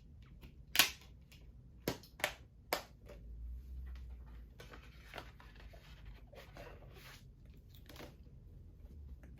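A Blu-ray steelbook case being handled: one loud click about a second in, three lighter clicks over the next second, then scraping and rustling as the case is moved.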